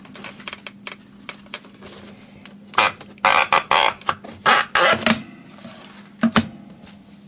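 Plastic parts of a BRG MK-21 cassette recorder clicking and scraping as a piece of its casing is worked loose and lifted off by hand: scattered light ticks, a run of loud scraping rattles about three to five seconds in, then two sharp clicks near the end.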